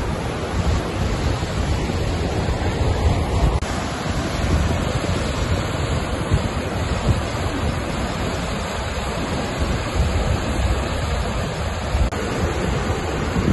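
Blakiston Falls, a waterfall, rushing in a steady, unbroken noise, with wind buffeting the microphone in a low rumble.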